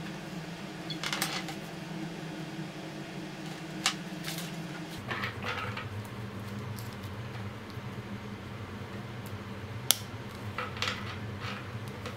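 Small clicks and rustles of a rugged plastic watch case and rubber strap being handled and fitted onto a smartwatch, with two sharp snaps about four and ten seconds in, over a steady low hum.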